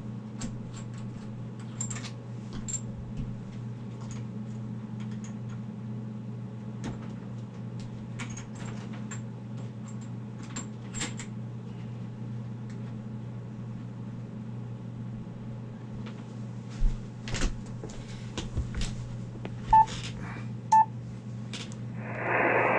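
Ham transceiver playing through an amplified external speaker box: a steady low hum with scattered faint clicks, then two short beeps from the radio's buttons as the band is changed to 40 meters. Right at the end a single-sideband station's voice comes in loudly.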